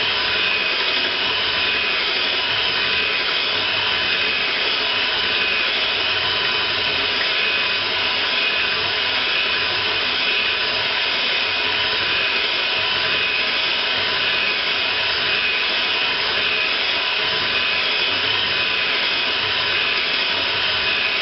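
Electric hand mixer running steadily on its lowest speed, its beaters whirring through thin, soupy pumpkin pie filling in a glass bowl.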